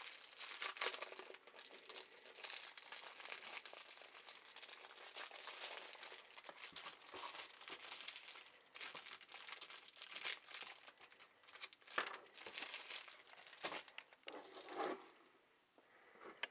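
Incense-cone packaging crinkling and rustling as it is handled to get a cone out, with sharper crackles now and then; it stops about a second and a half before the end.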